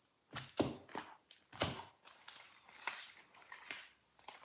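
Foil Pokémon card booster pack being handled and torn open: a run of short crinkles and clicks, with a longer rustle of tearing foil about three seconds in.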